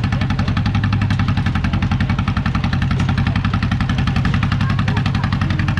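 Tractor engine running steadily while pulling a hay wagon, with an even, rapid pulsing beat.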